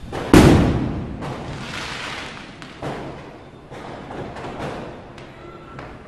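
Diwali firecrackers going off: one loud bang about half a second in that echoes and rumbles away over the next second or two, followed by a scatter of fainter, more distant cracks.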